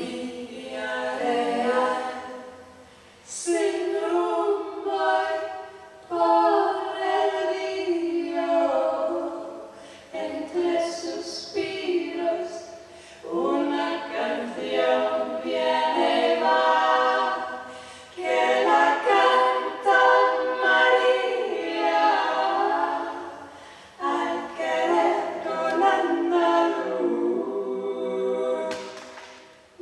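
Two women's voices singing a cappella, unaccompanied, in sustained phrases of a few seconds each with short breaks between them.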